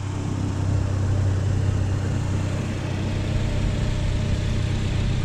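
A car engine running steadily with a low, even drone and a wide rushing noise over it.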